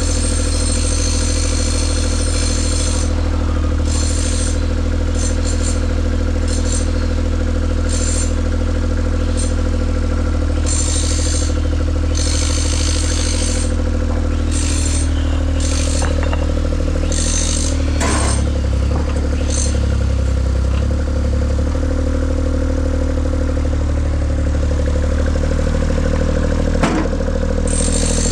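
A large engine running steadily at an even speed, with intermittent hissing and a few sharp knocks of clatter.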